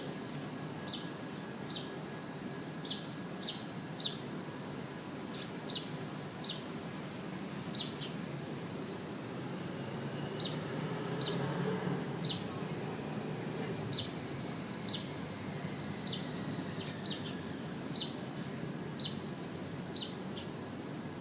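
Sparrows chirping: short, sharp chirps, irregular and often in pairs, over a steady low background rush.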